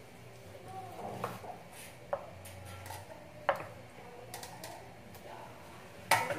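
Kitchen knife cutting boiled pork belly on a wooden cutting board: a few separate sharp knocks of the blade on the board, the loudest near the end, with light clinks as slices are set into a metal rack.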